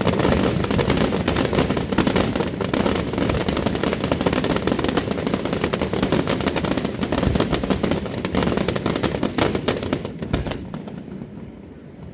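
Fireworks display: a dense, rapid crackle of bangs and pops from fountains and aerial shells, thinning out and fading about ten seconds in.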